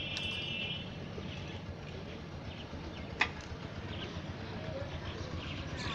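A single sharp knock about three seconds in and a fainter one near the end, over a steady low background hum.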